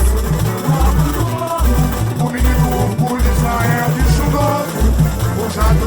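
Samba school drum section playing a samba-enredo, with deep surdo bass drum beats repeating steadily under higher melodic lines.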